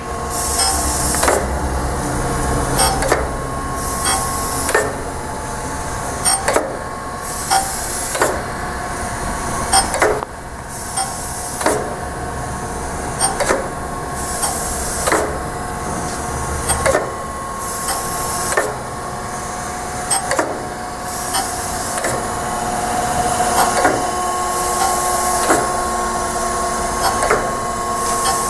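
Acer AGS-1020AHD surface grinder running under power: a steady machine whine with a short knock repeating about every second and three quarters. A low hum underneath drops out a little past halfway.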